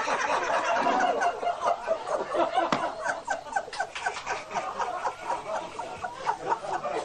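Hearty human laughter: a long, unbroken run of short, quick ha-ha bursts.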